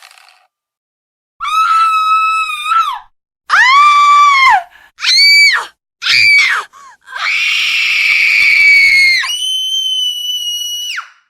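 A series of about five shrill, piercing screams, each held briefly and then broken off. The last is the longest and jumps to an even higher pitch partway through.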